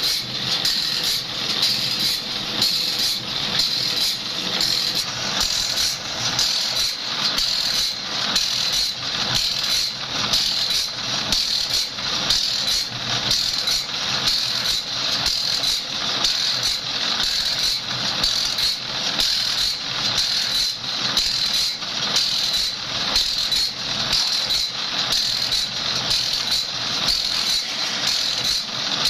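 Automatic bandsaw blade sharpening machine grinding the teeth of a band saw blade, the abrasive wheel dipping into each gullet in turn as the feed pawl steps the blade along one tooth at a time. It makes a steady grinding hiss broken into an even, repeating rhythm of strokes.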